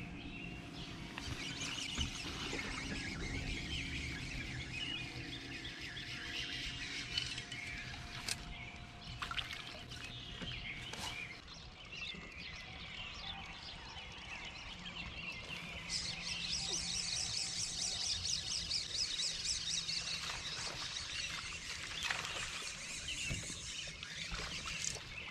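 Birds chirping and singing, a dense chorus that grows busier about two-thirds of the way through, over a faint steady hum, with a couple of sharp clicks.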